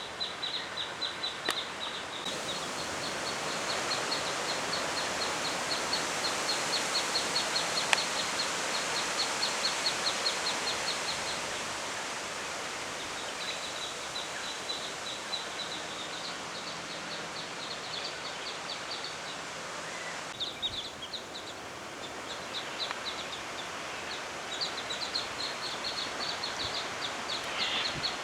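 Birds calling in fast series of short, high chirps, several a second, over a steady rushing outdoor background that is louder in the first half.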